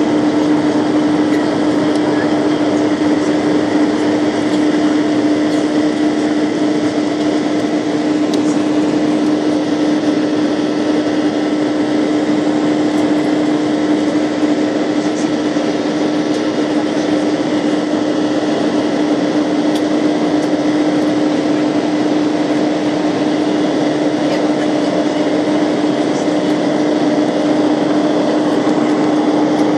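Airliner cabin noise during the climb: the engines and rushing air make a steady, unchanging noise with a constant low hum.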